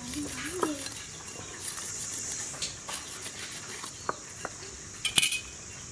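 A large kitchen knife scoring whole tilapia in a ceramic bowl: scattered sharp clicks and scrapes as the blade cuts the scales and knocks the bowl, the loudest a bit past five seconds in.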